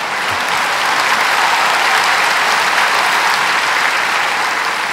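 Audience applauding, strong throughout and easing off near the end.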